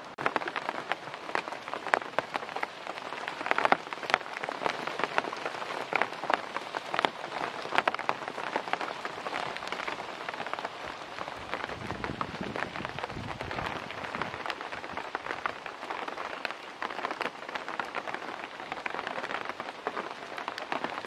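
Light rain falling in mountain forest, with a dense patter of close drops ticking on leaves. A brief low rumble comes about twelve seconds in.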